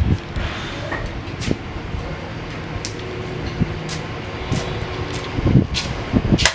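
Steady machinery hum with about half a dozen sharp metallic clanks spread through it: aluminum cans being dropped into a recycling center's can hopper.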